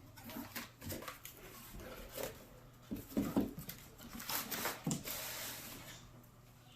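Packaging being handled during an unboxing: scattered rustles, light knocks and clicks, with a longer hissing rustle of plastic or paper a little after four seconds in.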